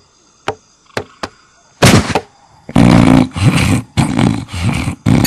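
A few light ticks, then loud cartoon snoring: several long, heavy snores one after another from about two seconds in.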